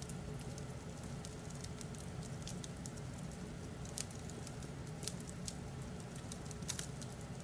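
Fireplace crackling: irregular small pops and snaps over a steady low hum.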